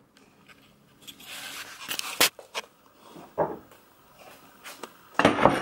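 Kitchen handling sounds at a countertop: scattered knocks and clicks, then a louder clatter near the end as a serving bowl is fetched.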